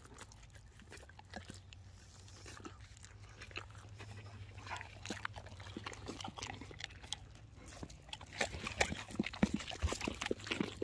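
Dogs panting and chewing pizza crusts, with quick crunching strokes that grow busier near the end.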